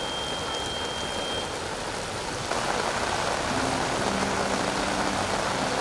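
Steady rushing noise of a swollen, fast-flowing river in flood, mixed with falling rain. It steps up louder about two and a half seconds in. A thin high steady tone sounds over it for the first second and a half.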